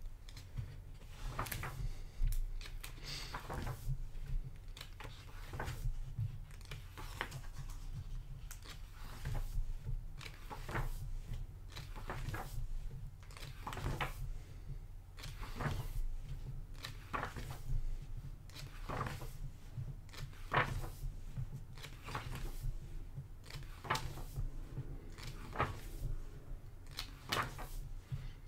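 Pages of a thick hardcover art book turned by hand one after another, a short papery flap every second or two, over a steady low hum.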